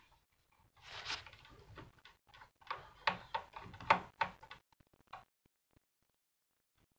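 Screwdriver turning out a small screw from the metal chassis of an Akai GX-747 reel-to-reel tape deck: a string of irregular metallic clicks and scrapes starting about a second in, loudest near four seconds, stopping a little after five seconds.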